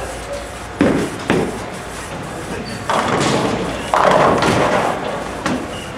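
Ten-pin bowling ball thudding onto the lane about a second in, then pins crashing about three seconds in, with another loud clatter of pins about a second later.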